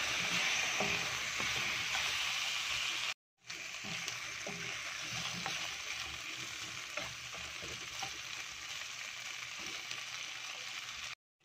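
Chicken feet sizzling in hot oil in a non-stick wok while being stirred with a spatula, with light scrapes and knocks of the spatula against the pan. The sizzle breaks off briefly about three seconds in, then goes on a little quieter.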